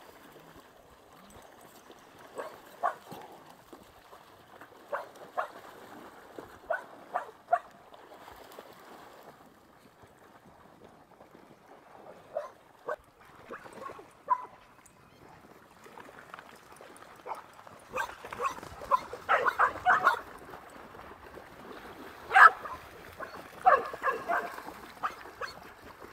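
Dogs barking in short, sharp barks, scattered in twos and threes at first, then coming more often and louder in the last third.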